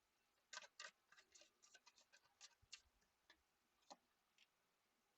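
Faint, irregular clicks and snaps of tarot cards being handled and shuffled, thickest in the first three seconds and thinning out after.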